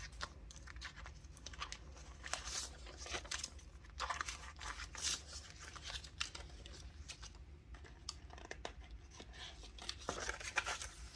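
Paper banknotes rustling and crinkling against clear plastic envelope sleeves in a cash binder as the bills are pulled out and handled. It comes as a string of short, irregular rustles.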